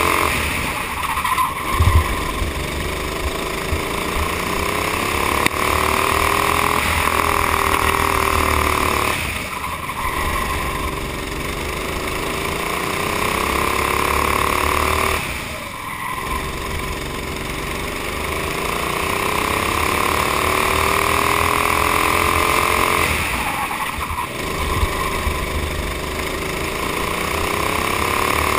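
Honda GX390 single-cylinder four-stroke kart engine at racing speed, its pitch climbing on each straight and dropping sharply four times as the throttle is lifted for corners. A brief low thump about two seconds in.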